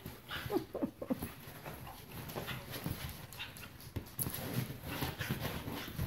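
A dog gives several short whines and grunts in the first second or so, then rustling and shuffling follows as it squirms on a leather couch.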